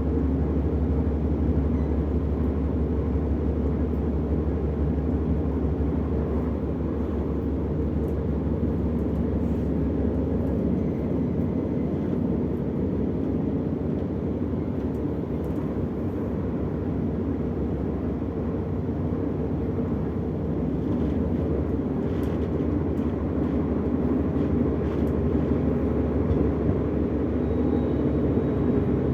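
Interior running noise of a Deutsche Bahn class 425 electric multiple unit travelling at speed: a steady low hum and rumble of the traction equipment and wheels on the rails.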